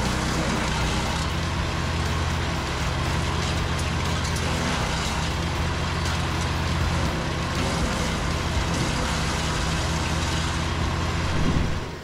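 The engine of a compact GTS1500E wood chipper running steadily at speed with nothing being fed in, its cutter spinning empty. The sound drops away just before the end.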